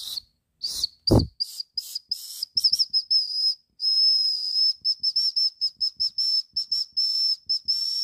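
The small built-in whistle of a RoverTac camping hatchet multitool blown over and over in short toots and a few longer blasts, giving a thin, breathy, high-pitched tone. The owner calls it a horrible whistle that does not work very well. A single handling knock comes about a second in.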